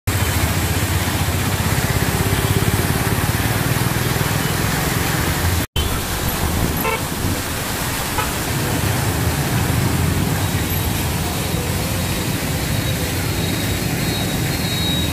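Busy city street traffic: motorbikes and auto-rickshaws running past, with a couple of short horn toots about seven seconds in. The sound cuts out for an instant near six seconds.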